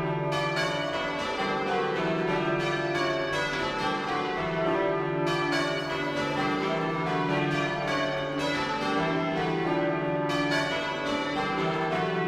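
Church bells ringing: several bells struck one after another in quick succession, their tones overlapping and ringing on without a pause.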